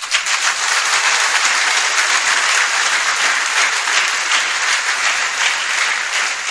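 A crowd of several hundred people applauding: dense, steady clapping that breaks out all at once.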